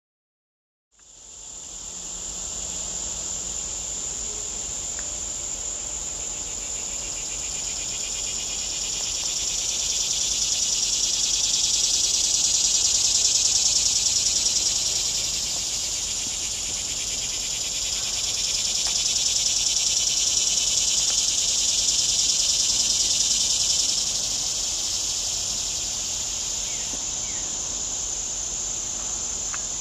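A dense chorus of insects in summer woodland, a steady high-pitched buzzing that starts abruptly about a second in, then swells louder twice and eases off.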